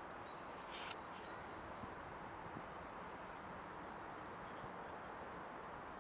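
Faint outdoor ambience: a steady background hiss with a few small birds chirping high and faint, and a brief rustle about a second in.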